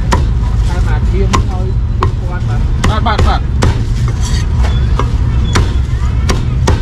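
Meat cleaver chopping cooked meat on a chopping board: about ten sharp chops, roughly one every two-thirds of a second, over a steady low rumble and voices.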